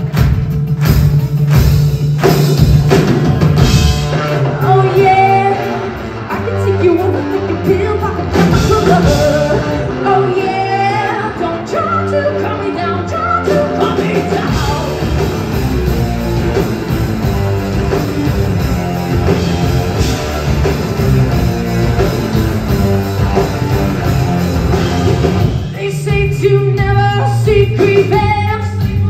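Live rock band playing, with electric guitars, bass and drums under a woman singing lead.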